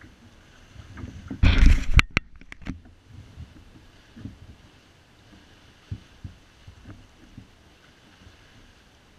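Handling noise on a camera aboard a plastic fishing kayak: a loud rubbing scrape about a second and a half in, followed by a few sharp clicks. After that come scattered soft knocks against the kayak.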